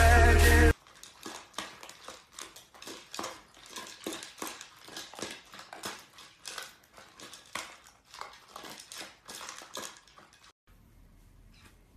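Two long-haired dachshunds eating from bowls: quick, irregular clicks and clinks of food and bowl, several a second, which stop shortly before the end. Loud music cuts off under a second in.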